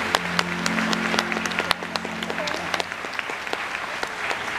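Theatre audience applauding, a dense patter of claps, while the last held chord of the recorded show music fades out about halfway through.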